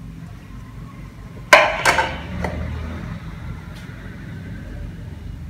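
Kitchenware set down with two sharp clatters on a hard countertop, each with a short ring, followed by a lighter clink, over a steady low hum.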